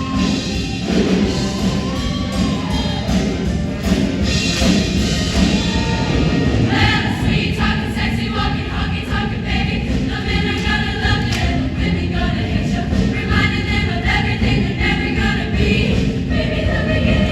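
Show choir singing together over a loud backing track with a steady low beat; the full group of voices comes in strongly about seven seconds in.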